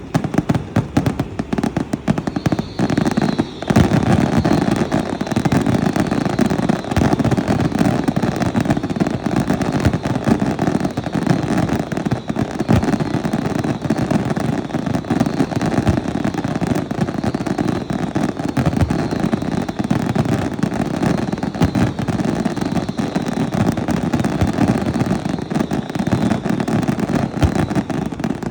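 Fireworks going off: a dense, continuous barrage of bangs and crackling with no let-up.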